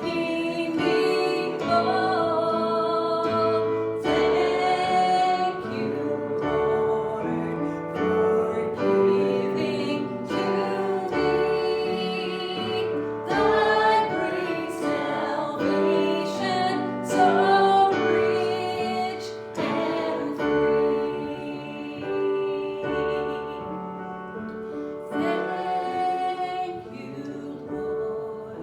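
Church worship music: voices singing with piano accompaniment, with long held notes.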